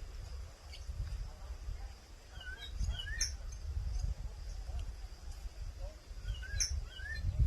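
A sabiá (thrush) calling: two short runs of quick rising whistled notes, the first about three seconds in and the second a few seconds later.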